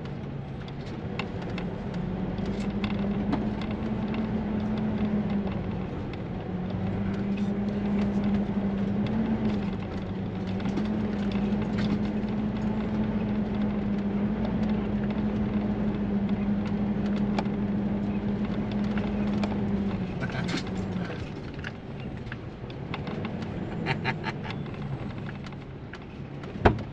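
Class C motorhome's engine heard from inside the cab, running with a steady low note while the rig creeps across a dirt lot. It eases off about twenty seconds in as the motorhome slows to a stop.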